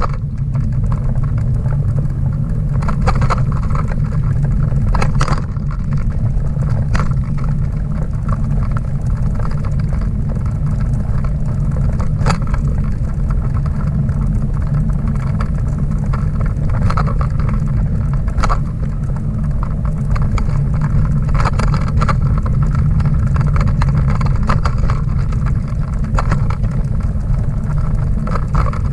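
Steady low rumble of a Schwinn dog bike trailer rolling over pavement behind a bicycle, carried through the trailer into the camera, with an occasional knock and rattle as it goes over bumps.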